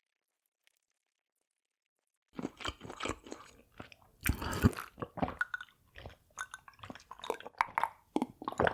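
Silence, then about two seconds in, close-miked chewing and crunching of food begins: irregular wet bites and crunches one after another.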